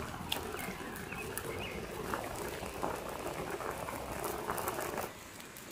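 Fish soup boiling hard in a pan over a campfire: steady bubbling with many small pops, dropping away about five seconds in.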